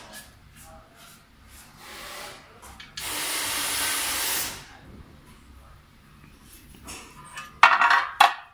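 A burst of hiss lasting about a second and a half, then near the end a loud metallic scrape and clatter as the black steel stand's column and base are laid down on the floor.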